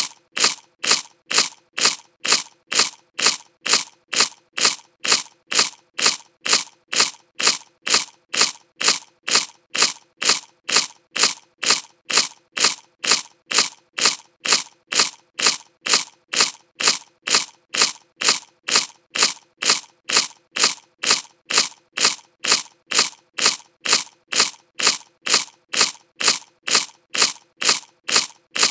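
Potato chip crunching, one sharp crunch about every half second, evenly repeated like a loop.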